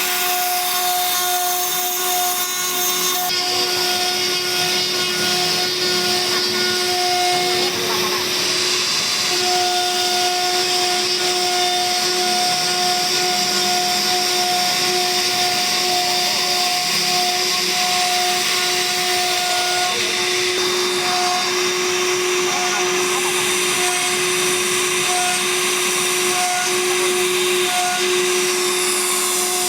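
CNC router spindle running with a steady whine while its bit carves into wood, with a constant hiss of cutting; the sound shifts slightly a few times as the cut changes.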